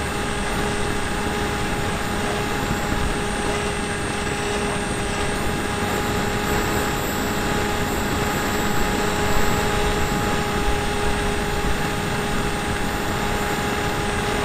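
Electric motor and propeller of an RC model plane in flight, holding a steady whine over a constant rush of air-noise, heard from a camera aboard the plane.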